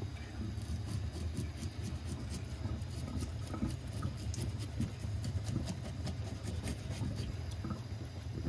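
Kitchen knife scraping the scales off a kasago (Japanese scorpionfish) on a wooden cutting board: a run of quick, irregular scratchy strokes. A steady low hum sits underneath.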